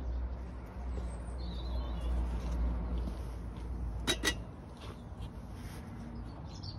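A small metal camping kettle set down on a flat stone: two sharp clinks about four seconds in, over a steady low rumble and a faint bird chirp.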